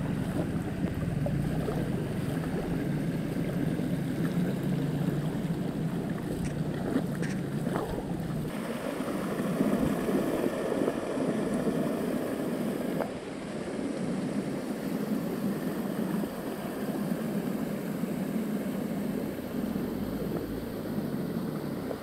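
Rushing river water, a steady noise whose low rumble drops away about eight and a half seconds in.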